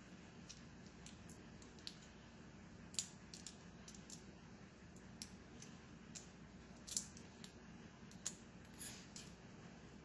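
Small, sharp clicks and taps from handling the small parts of a 4L60E transmission's pressure manifold switch assembly. They come at irregular intervals, the loudest about three and seven seconds in.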